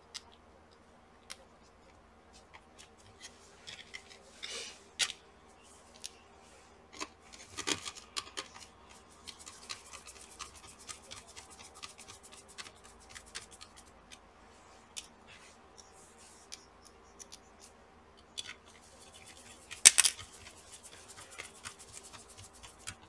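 Small plastic and metal laptop parts being handled: a laptop cooling fan and its cable worked into place in the chassis by gloved hands, giving scattered clicks and short scraping and rubbing noises, with one sharp click about twenty seconds in.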